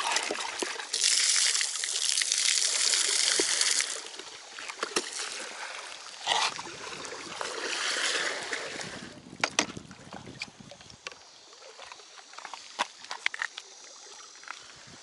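Seawater pouring, splashing and sloshing as a collapsible rope bait bucket is emptied and dipped into the sea from a breakwater. The longest, loudest pour comes about a second in and lasts some three seconds, a second splashy stretch follows a few seconds later, and scattered knocks and clicks of handling close it out.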